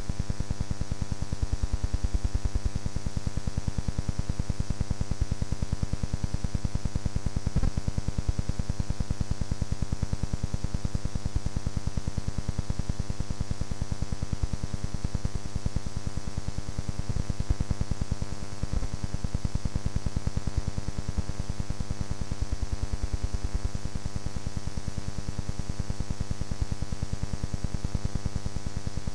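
Steady electrical buzz: a mains hum with many overtones and a hiss, unchanging throughout, with a few faint clicks.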